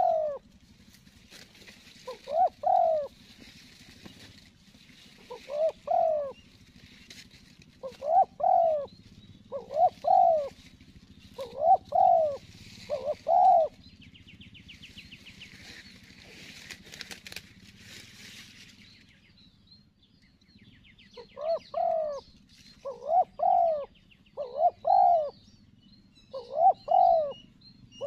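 Spotted doves cooing: a run of low, arched coo notes about every second and a half, a pause of several seconds, then another run. Faint high chirps and a brief buzzy trill sound behind.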